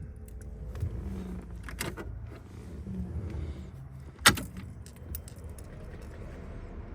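Keys jangling and a few clicks, with one sharp, loud click about four seconds in, over a steady low hum.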